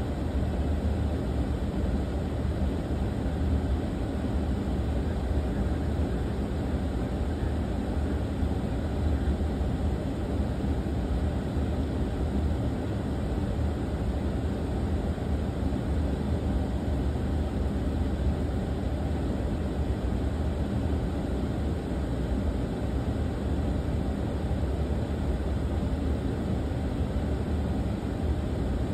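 Steady low hum and hiss of background noise on a parked Boeing 747-8F flight deck, unchanging in level and pitch.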